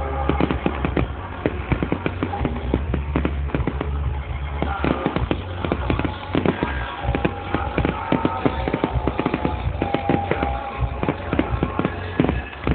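Fireworks display: a dense, continuous run of sharp bangs and crackling reports, several a second, with no pause.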